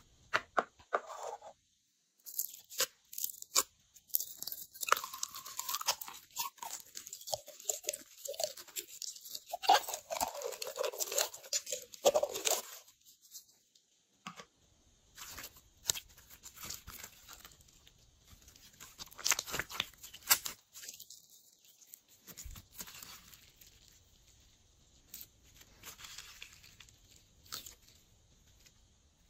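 Glossy slime being squished and stretched by hand with add-ins mixed through it, giving irregular wet clicks, pops and crackles. The sounds come thick and fast for the first half, then turn sparser with a few louder bursts.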